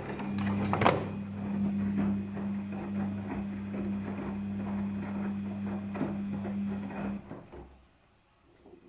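Daewoo DWD-FT1013 front-loading washing machine on a cotton 40°C wash, its drum motor running with a steady hum while the drum turns, with clicks and knocks from the drum and load and one sharp knock about a second in. The motor stops about seven seconds in, as the drum pauses between tumbles.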